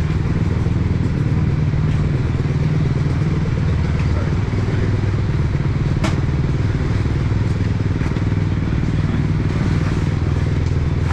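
Motorcycle engine running at a steady pitch, with one sharp click about six seconds in.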